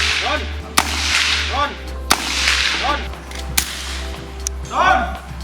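Rimfire rifle shots, four or five in irregular succession, each a sharp crack with a short echo. After several of them a brief ringing tone follows.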